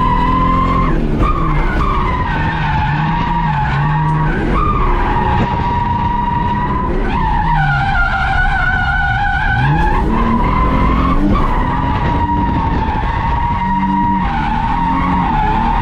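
Holden VS Commodore's standard V6 engine revving up and down inside the cabin while the car drifts, with a loud, steady tyre squeal over it that briefly drops in pitch several times.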